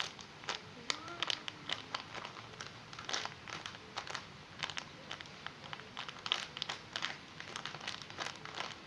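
Plastic packaging crinkling and rustling in irregular crackles as squishies are handled and searched through.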